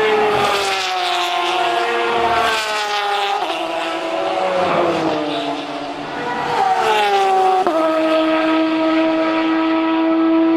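GTE race car engine coming off the throttle, its pitch stepping down through several downshifts. It revs up briefly, drops sharply about three-quarters of the way through, then holds one steady pitch.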